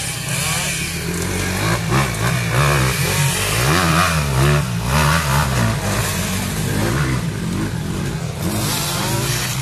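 Dirt bike engines revving, the pitch rising and falling over and over as the throttle is worked.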